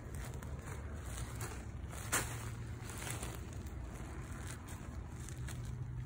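Gloved hand working through loose potting soil on a plastic tarp: soft crumbling and rustling with scattered crackles, one sharper about two seconds in, over a steady low rumble.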